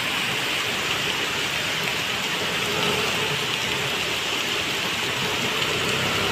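Heavy monsoon downpour: rain pouring steadily onto a flooded road, an even, unbroken hiss.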